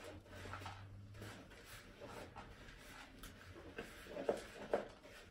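Hand utensil stirring grated carrot, cheese, oats and egg in a plastic mixing bowl: soft scraping, with a few light clicks against the bowl about four seconds in.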